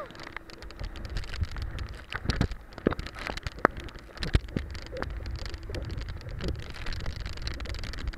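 Water splashing and spraying against an inflatable banana boat towed at speed over choppy sea, with irregular sharp knocks as it slaps over the waves and a low rumble of wind and water.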